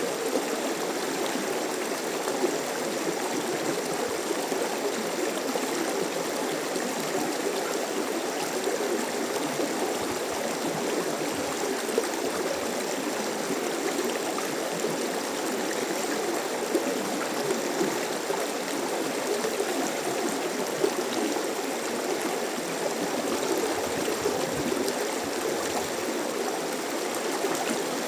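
Mountain stream running over rocks: a steady rushing babble with small splashes.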